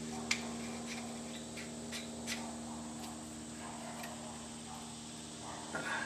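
Faint, scattered small clicks of metal shotgun parts being handled as the barrel is worked onto the magazine tube, over a steady low hum.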